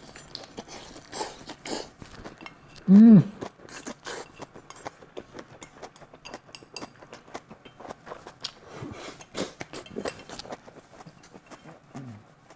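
Close-up eating sounds: chewing and mouth noises, with chopsticks clicking against a plate. About three seconds in comes a short, loud hummed "mm" that rises and falls, and near the end a brief, lower hum.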